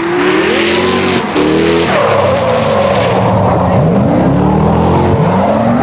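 Drift cars at full throttle: engines revving up and down repeatedly over a steady screech of sliding tyres, the revs falling away about five seconds in.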